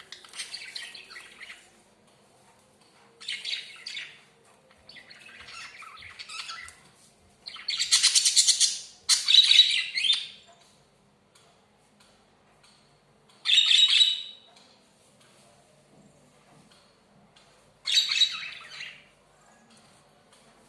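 Pet budgies (budgerigars) chirping and chattering in short bursts of a second or so, with pauses between; the loudest bursts come near the middle.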